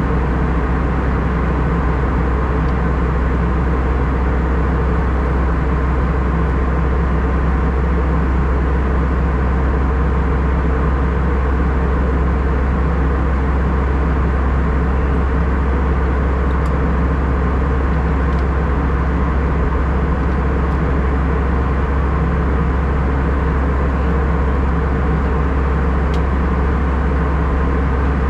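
Steady cabin noise of an Airbus A319-114 in flight, heard from a seat near the front of the cabin. A deep, even drone of CFM56 turbofans and airflow carries a few faint steady tones over it and does not change.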